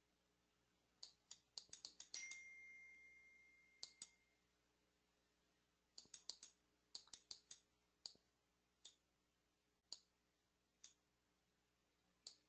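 Near silence broken by faint scattered clicks in small quick clusters, like computer keys or a mouse being clicked. About two seconds in, one click is followed by a short steady tone that fades away over about a second.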